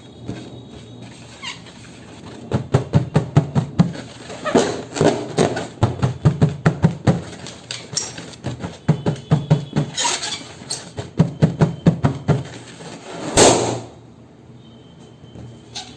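Balloons being inflated with a hand pump: runs of rapid rhythmic pumping strokes, about five a second, with a few louder rushes of air and one loud burst near the end.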